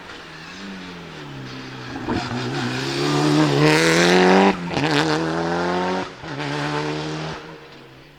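Mitsubishi Lancer Evolution VI Group A's turbocharged 4G63 engine accelerating hard past. The pitch climbs and drops suddenly at two gear changes, with sharp cracks at the shifts from the anti-lag misfiring system, then the sound fades away.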